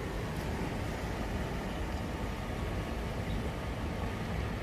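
Steady outdoor noise dominated by wind buffeting the microphone, a low fluttering rumble with an even hiss above it.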